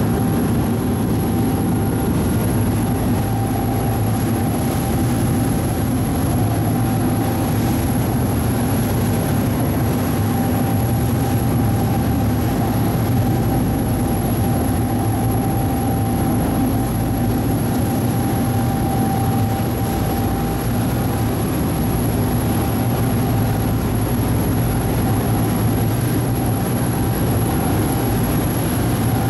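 A ferry's engine running steadily: a constant low drone with a faint steady whine above it.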